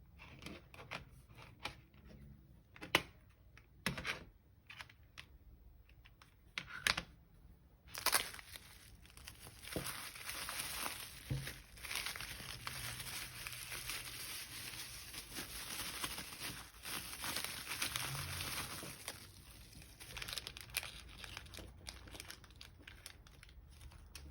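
Packaging being handled during an unboxing: a few separate crinkles and taps over the first eight seconds, then continuous crinkling and tearing of wrapping for about twelve seconds before it thins out near the end.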